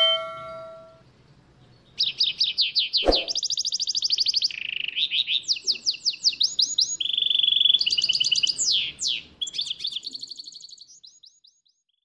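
Canary singing a fast song of rapid trills and repeated notes, switching to a different note type every second or so, with one short knock about three seconds in; the song fades away near the end. A chime rings and dies away in the first second.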